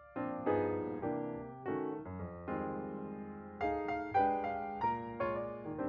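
Piano music: a slow passage of chords, each struck and then fading.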